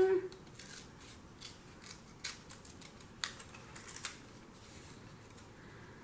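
Scissors snipping through paper, cutting out a small shape: a series of separate short snips, roughly one a second.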